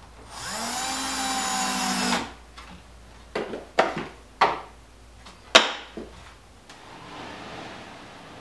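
Cordless drill spinning up and driving a screw into a drawer slide for about two seconds, its pitch rising as it starts and then holding steady. Four sharp knocks follow, and near the end comes a soft rushing slide as a drawer runs on its metal drawer slides.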